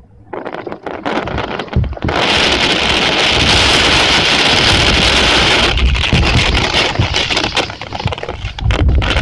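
Typhoon downpour: a loud, steady rush of heavy rain and water that starts suddenly about two seconds in and eases briefly near the end, with low wind rumble on the microphone.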